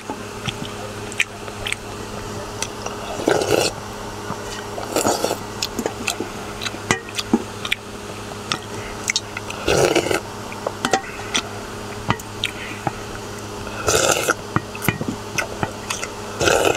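Cold noodles being slurped from a stainless steel bowl in several short slurps, with many small clicks of wooden chopsticks against the bowl.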